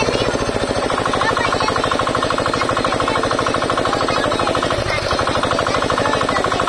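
Single-cylinder diesel engine running steadily with a fast, even chugging beat while it drives a centrifugal water pump.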